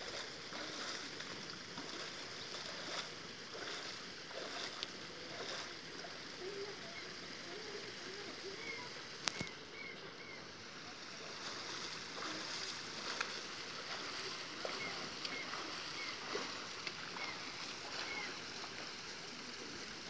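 Steady rush of river water from the cascades and pools, with faint distant voices now and then and a single sharp click about nine seconds in.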